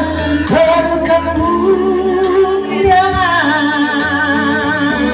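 Indonesian Marian hymn sung with long held notes and vibrato over instrumental accompaniment; the line ends on the word 'berkemuliaan' near the end.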